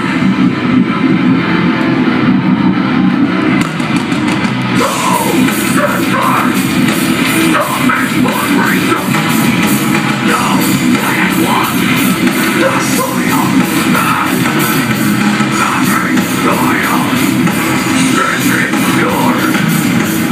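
Death metal band playing live through a loud PA: distorted guitars and drums, with a woman's vocals over them. The cymbals come in about five seconds in, hitting in a fast even pattern.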